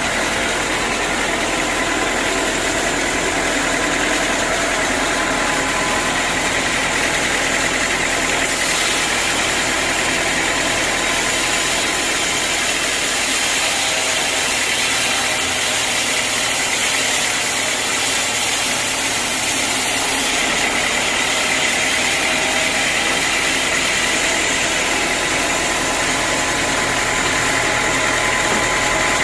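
Sawmill running steadily, its saw working through a teak log, a dense mechanical drone and hiss. The high hiss shifts slightly about eight seconds in and again about twenty seconds in.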